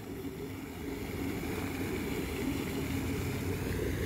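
A steady, low engine drone, growing slightly louder about a second in.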